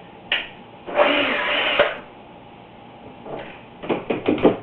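Handling noise from a dehumidifier's plastic side panel being worked loose: a click, a scrape lasting about a second, then a quick run of clicks and knocks near the end.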